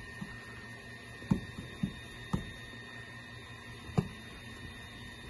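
Cotton rag being rubbed by hand over a plastic car headlight lens, with several short dull knocks between about one and four seconds in, over a steady hum.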